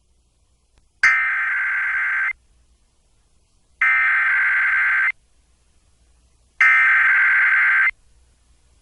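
Emergency Alert System SAME header: three identical bursts of buzzing digital data tones, each a little over a second long and about a second and a half apart, the coded header of a severe thunderstorm warning.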